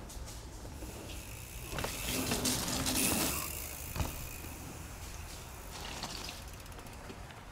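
Mountain bike rolling over a dirt trail: tyre and trail noise that swells about two seconds in, with a single sharp knock about four seconds in.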